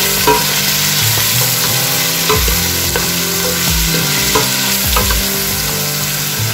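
Meat, garlic and ginger sizzling as they fry in a stainless steel pot, with a wooden spoon scraping and knocking against the pot about once a second as they are stirred.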